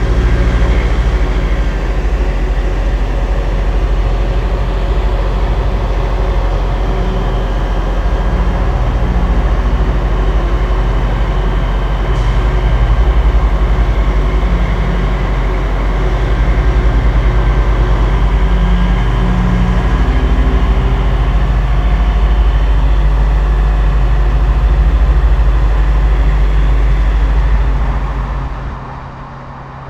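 Heavy diesel semi-truck engine, the Peterbilt 389's Detroit Diesel Series 60 straight-six, running with a deep, steady exhaust rumble whose pitch steps up and down as it pulls away. The sound fades down near the end.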